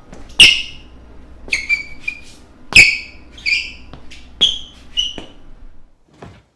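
A series of about eight short, high squeaks at irregular intervals, each starting with a sharp click, the loudest about half a second in and near three seconds in.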